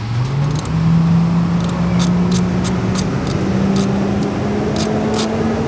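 A motor running steadily, its pitch stepping up at the start and then climbing slowly, with regular sharp ticks; it stops abruptly at the end.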